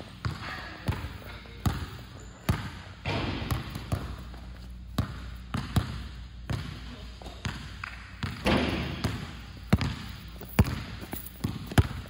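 Basketball bouncing on a gym floor in irregular dribbles and bounces, coming about once a second and closer together near the end. Two longer bursts of noise come about three seconds in and about eight and a half seconds in, the second the loudest thing here.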